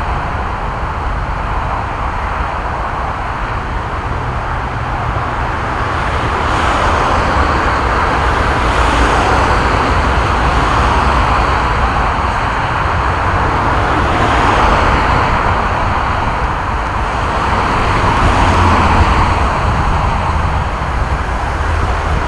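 Motorway traffic: a continuous wash of tyre and engine noise with a low rumble. Individual vehicles swell up and fade as they pass, about every few seconds, most plainly around 9, 14 and 19 seconds in.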